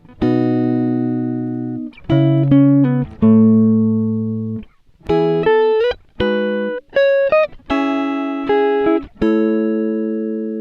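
Background music: a clean-toned guitar playing a slow run of plucked notes and chords, each ringing on and fading, with short pauses between phrases.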